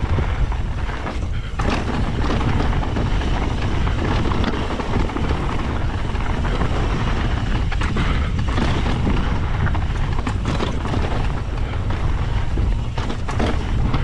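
Wind buffeting the camera microphone as an Ibis Ripmo mountain bike descends a rocky dirt trail at speed. The tyres crunch over gravel and stones, and the bike rattles and knocks over rocks throughout, more often in the second half.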